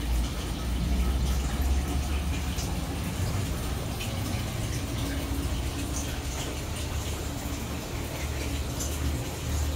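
Aquarium aeration bubbling and water splashing at the surface, a steady watery noise with small scattered pops, over a low rumble.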